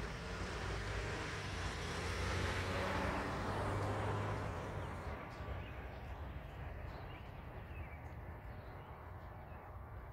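A car driving past on the road, its noise swelling to a peak a few seconds in and fading away by about halfway. After that, faint street ambience with light ticks.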